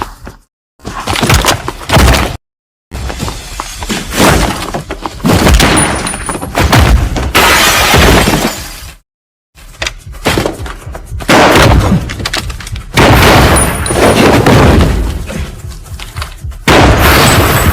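A string of TV sound-effect clips for a superhero's gun: blasts followed by crashing, shattering noise. Each clip is cut off abruptly, with three short breaks of silence between them.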